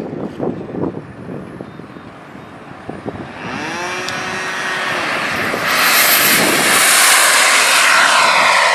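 Radio-controlled model airplane's motor and propeller whining as the plane takes off along the runway and passes close. The whine grows louder about three seconds in, shifts in pitch, and swells again about halfway through to its loudest.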